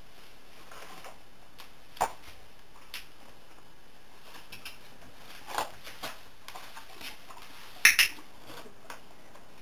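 A hand-held training clicker clicking during clicker training of a horse: a single sharp click about two seconds in and a quick loud double click near the end, marking the horse's response. Softer knocks and rustles of movement in the straw bedding come between.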